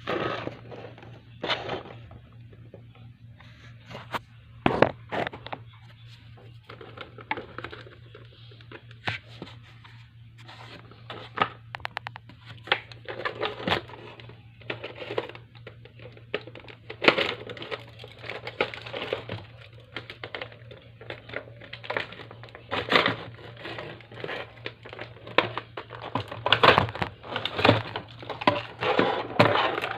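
Figure packaging being handled and opened: irregular crinkling, rustling and tearing, with scattered knocks and taps over a low steady hum.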